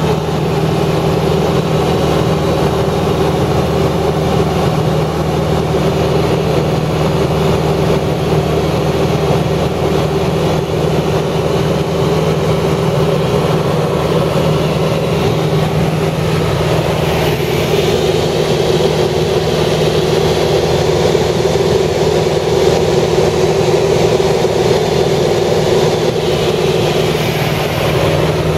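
An engine running steadily with a low hum, its noise swelling somewhat in the second half.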